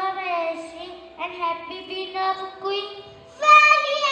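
A young child singing into a microphone, heard through the hall's sound system. About three and a half seconds in, a second child's voice comes in louder.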